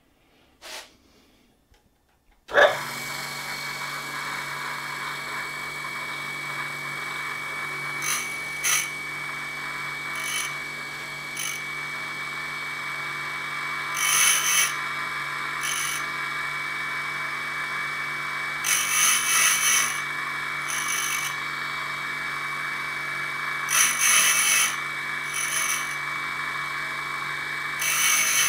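Electric motor of an AR5 tool and cutter grinder switches on about two and a half seconds in and runs steadily with a high whine. A diamond point facing the spinning grinding wheel makes about a dozen short hissing scrapes, some longer than others, as it is fed across the wheel face to true it flat.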